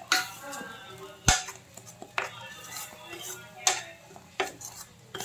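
Metal spoon stirring ground masala in an aluminium kadhai, knocking and scraping against the pan in about six sharp clacks, the loudest about a second in.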